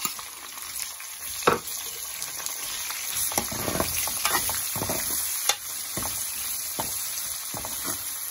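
Chopped onions sizzling in hot oil in a kadhai while being stirred, with a few sharp knocks, the loudest about a second and a half in.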